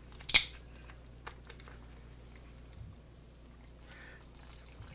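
One sharp click and a few light ticks as a carton of beef stock is handled and opened. Near the end, stock starts pouring from the carton into an enamelled pot over browned beef and onions.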